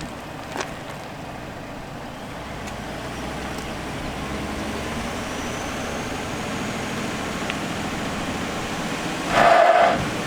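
Pickup truck engine running steadily and slowly growing louder, with a brief louder surge near the end.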